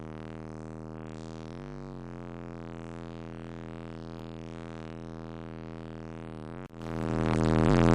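Music with sustained synthesizer tones playing at moderate volume on a car audio system. About seven seconds in it cuts out for an instant, then swells quickly to loud, with heavy bass, as the system is turned up.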